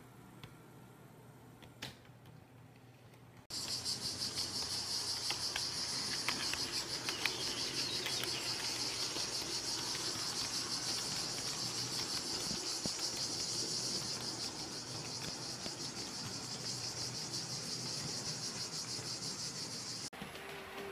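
HO-scale model train running on its track: a steady high-pitched buzzing whine from the locomotive's motor, with a fast fine clicking of the wheels. It starts suddenly a few seconds in, after a quiet stretch with a few faint clicks, and cuts off shortly before the end.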